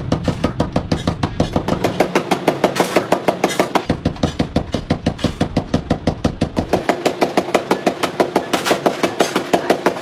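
Rapid hammer blows on a steel mesh basket held over an anvil stake, striking at a fast, even rhythm of about five blows a second.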